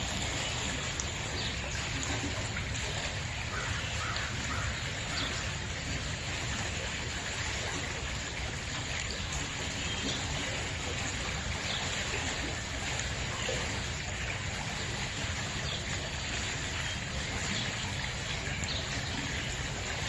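Forest stream flowing: a steady rush of moving water.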